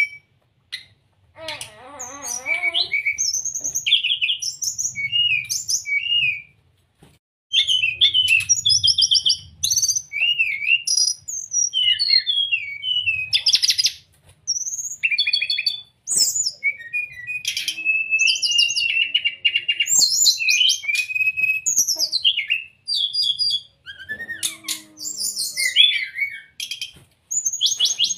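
Brown-chested jungle flycatcher singing: a long series of varied, high, clear whistled phrases with quick rising and falling notes, delivered in bursts with brief pauses between them.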